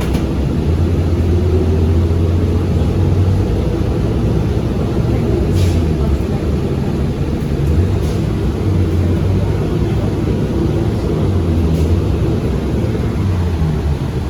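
Inside a moving transit bus: the engine and road noise make a steady low rumble. A few brief, sharp higher sounds stand out above it, the plainest about five and a half seconds in.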